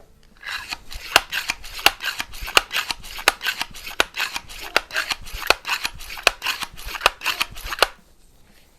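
Excellent C1 multi-pump air rifle being pumped rapidly: an even run of clicking, rasping strokes, about three a second, that starts about half a second in and stops abruptly near the end.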